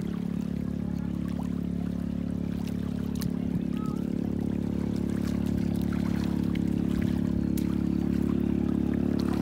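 Shallow water sloshing and trickling, with small splashes, as a person wades and gropes along a net for fish, over a steady low hum.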